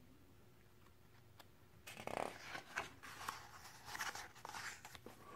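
Page of a picture book being turned: about two seconds in, faint paper rustling and crinkling starts and lasts roughly three seconds.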